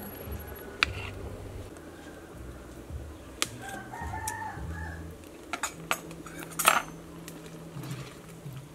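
A ladle clinking against a metal cooking pot several times, the loudest clink near the end, while a rooster crows once about four seconds in.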